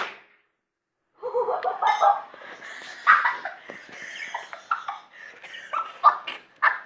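The tail of a loud bang fades out at the very start. After about a second of silence comes a string of short, sharp vocal sounds that grow louder and come in quick bursts towards the end.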